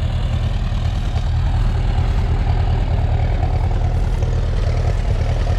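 Ferguson T20 tractor engine idling steadily with a low, even beat.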